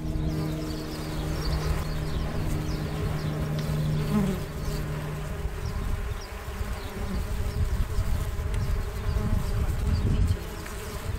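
Solitary mason bees buzzing as they fly in and out of the nesting tubes of a bee hotel: a steady low buzz holds for the first half and then drops away, leaving a low rumbling noise in the second half.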